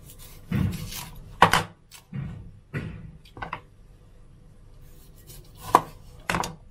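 Knife cutting cauliflower florets off the head on a plastic cutting board: about seven short cuts, each with the blade tapping the board. There is a pause of about two seconds before the last two cuts.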